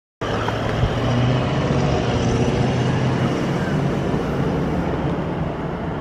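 Street traffic noise with a steady low engine hum.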